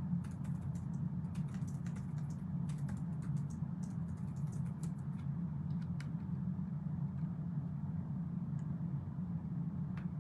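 Typing on a computer keyboard: a quick run of keystrokes for about five seconds, then a few scattered keystrokes, over a steady low hum.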